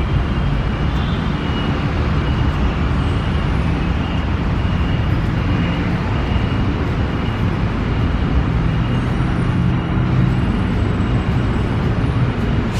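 Steady rumble of city road traffic, with faint short high notes repeating over the first half.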